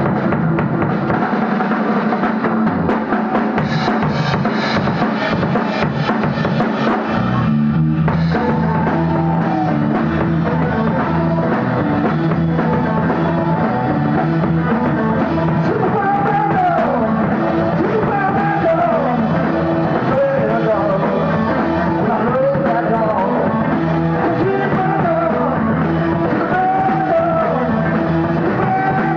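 A rock band playing live, drums and guitar to the fore. About eight seconds in, a steady bass line comes in and the music fills out; a gliding melody line runs over it in the second half.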